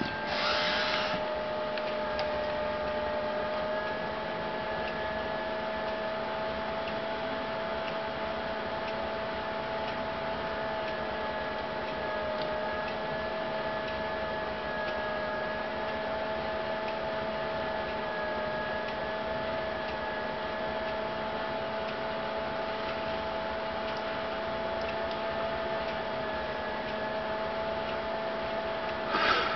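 A steady electrical whine: one slightly wavering mid-pitched tone with a fainter higher tone over a hiss, broken by a short burst of noise just after the start and again near the end.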